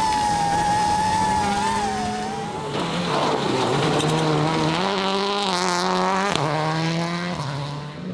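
Rally car engine running hard at high revs. Its pitch climbs from about four seconds in and breaks sharply a little after six seconds, as at a gear change.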